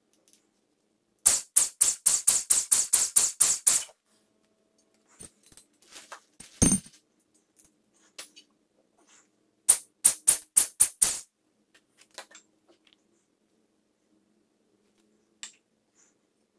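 Two runs of quick, sharp taps, about five a second: about a dozen in the first run and about six in the second, with a single heavier knock between them.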